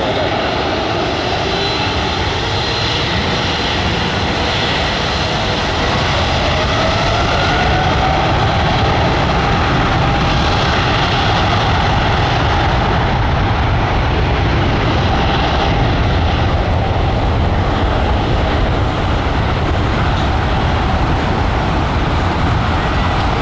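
Boeing 777-300ER's two GE90-115B turbofans at takeoff power: a loud steady jet noise with a deep low rumble, and a whine that rises in pitch over the first several seconds as the engines spool up for the takeoff roll.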